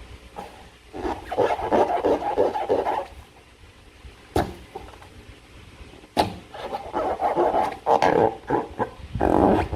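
Slime being squeezed and worked by hand, making wet squelching and crackling in two bouts, with a sharp click between them.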